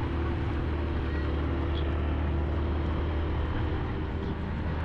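A vehicle engine running steadily: a continuous low hum with road and wind noise over it.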